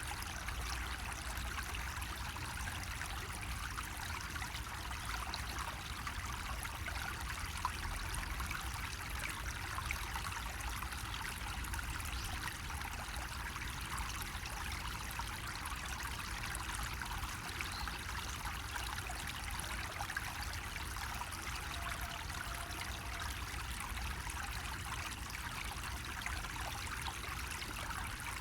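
Water running steadily from a bamboo spout, a continuous even trickle and splash.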